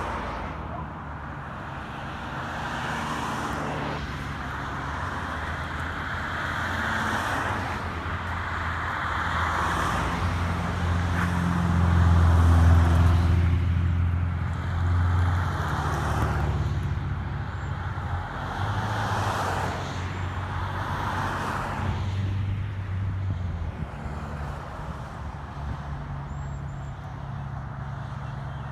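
Motor vehicles running and passing on a road: a steady low engine hum under repeated swells of tyre and road noise, loudest about halfway through.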